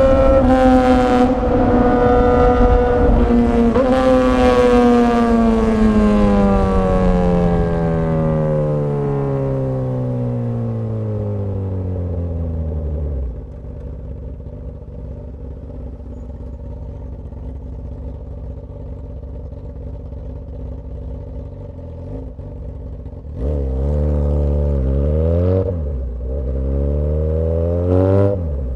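Straight-piped Suzuki GSX-S1000 inline-four exhaust under way: high revs with a gear change at the start, then the pitch falls steadily for about nine seconds as the bike slows, settles into a lower steady idle, and near the end revs up twice as it pulls away.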